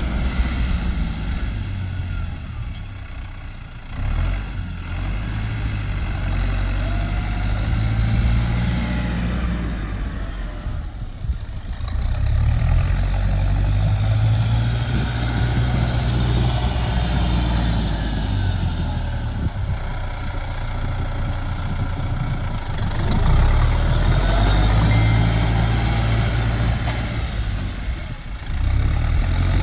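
A heavy vehicle's engine running steadily, its speed changing a few times: it drops back about a third of the way in and picks up again, and steps up once more near the end.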